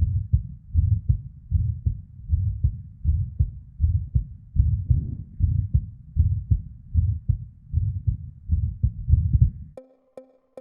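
A woman's irregular heartbeat, heard from close to the heart as repeated low thuds a little under a second apart, with ectopic beats (PVCs) and a murmur from blood flow. Near the end the heartbeat cuts off suddenly and electronic music with a ticking beat starts.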